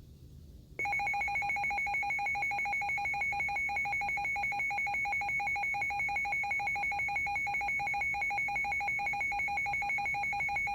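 Emergency weather alert alarm: a loud electronic tone sounding two pitches at once and pulsing rapidly. It starts about a second in and holds steady for about ten seconds, signalling a new severe thunderstorm warning.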